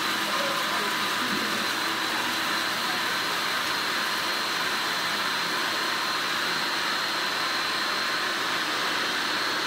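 Food processor motor running at full speed, grinding almonds: a loud steady whirr with a high whine held at one pitch.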